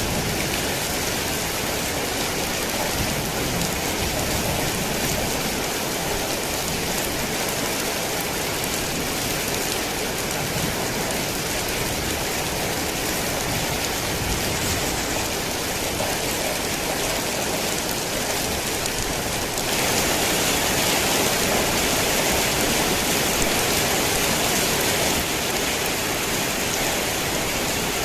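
Heavy rain falling steadily, a dense even hiss of drops on surfaces; it swells a little louder about two-thirds of the way through, then settles back.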